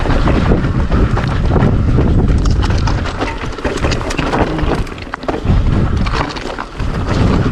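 Strong wind buffeting the microphone while a mountain bike clatters and rattles over a rough, rocky descent, with short lulls about five and six and a half seconds in.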